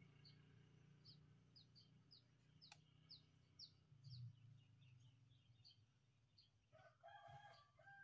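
Faint outdoor birdsong: a small bird repeating short, high, down-slurred chirps two or three times a second, over a low steady hum, with a single sharp click about three seconds in. Near the end a rooster starts crowing.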